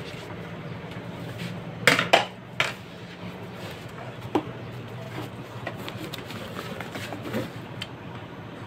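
Metal screwdriver knocking and clicking against the plastic hinge and housing parts of an Epson L210 printer's scanner unit, with a quick cluster of sharp knocks about two seconds in and a single click a couple of seconds later. A steady low hum runs underneath.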